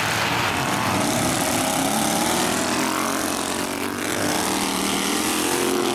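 Several racing lawn tractor engines running hard in a pack, their pitches overlapping and rising and falling as the drivers accelerate and lift through the turns.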